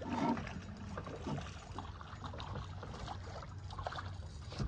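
Water lapping and splashing against the hull of a small boat, with scattered short splashes over a low steady rumble.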